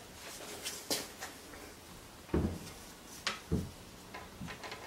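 Scattered wooden knocks and clunks as a wooden slat is handled against the hanging wooden balls and plywood base of a pendulum wave machine, the loudest a dull thump a little over two seconds in.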